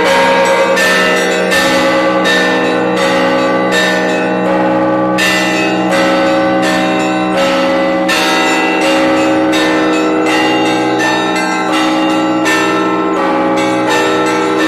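Russian Orthodox church bells rung together in a steady, dense peal, several bells of different pitches struck in a repeating pattern about two to three strikes a second, their tones ringing on over one another.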